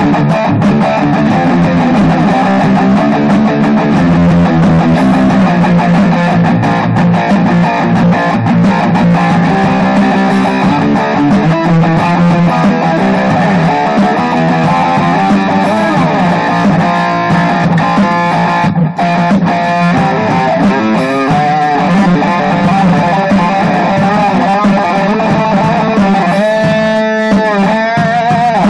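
Electric guitar played in an improvised hard-rock jam, continuous and loud, with wavering bent notes near the end.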